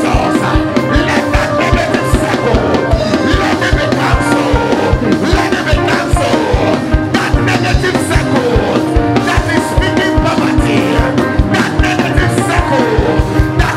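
Live church band music with a fast, steady drum beat and sustained keyboard chords, under the voices of a congregation praying aloud.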